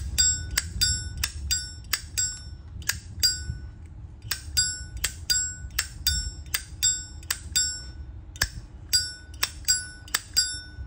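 A 1990 Zippo Canada Sport lighter's hinged lid flicked open and snapped shut over and over, each click ringing bright and metallic, mostly in quick open-and-close pairs.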